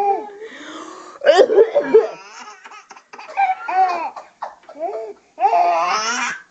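Baby laughing in several loud bouts of belly laughter, with short pauses between them.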